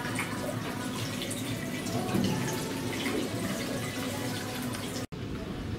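Water from an ornamental Buddha-head fountain trickling and splashing steadily into its shallow basin. It cuts off abruptly near the end.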